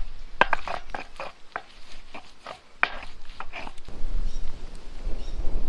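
A stone roller grinds and crushes chili paste on a flat grinding stone, making a quick run of short scraping, crunching strokes. About four seconds in the strokes stop and a steady low rumble takes over.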